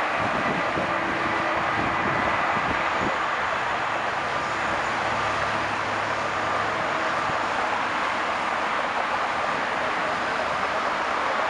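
Boeing 747-400F freighter's four turbofan engines running at taxi power: a steady rushing noise with faint high whining tones.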